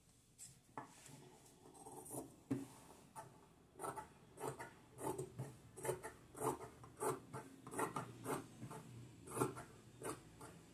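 Fabric shears snipping through cotton dress cloth, trimming the excess from a sewn neck seam. A few scattered cuts at first, then from about four seconds in a steady run of short snips at roughly two a second.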